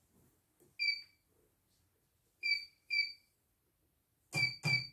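Three short single-pitch key beeps from the CNY E900 embroidery machine's touchscreen as it is tapped. Near the end, a louder run of rhythmic beeping pulses with low thumps starts, about three a second.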